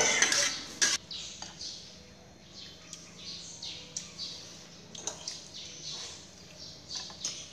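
Small birds chirping repeatedly in the background: short, high, falling chirps several times a second, with a few light clicks in between.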